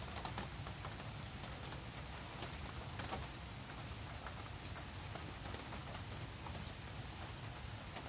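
Steady rain pattering, with scattered faint drips and a low steady hum underneath.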